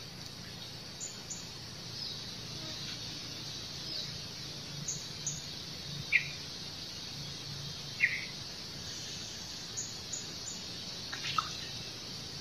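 Outdoor ambience with bird chirps: short single calls, two louder ones about two seconds apart in the middle, and fainter, very high chirps in quick pairs, over a steady faint high hiss.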